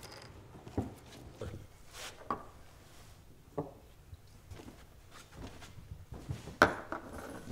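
Quiet room with scattered small knocks and clicks on wood, then a sharp knock about six and a half seconds in as a small glass is set down on a wooden bar counter.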